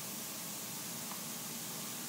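A pause between spoken phrases: a steady hiss from the recording's background noise, with no other sound.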